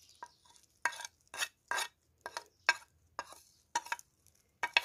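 A metal spoon scraping and tapping spices off a plate into a glass bowl of diced potato, about ten short, sharp scrapes at an uneven pace.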